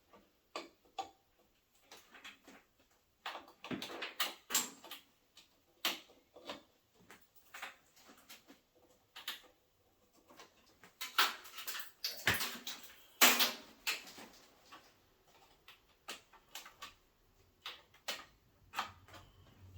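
Irregular clicks, knocks and rustling from hands handling computer parts on a desktop PC, with louder clusters about four seconds in and again around eleven to fourteen seconds.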